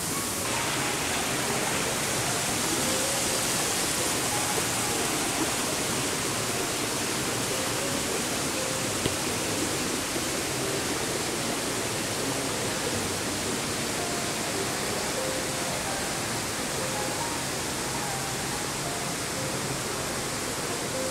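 A steady rushing hiss of background noise, with faint short high tones scattered through it.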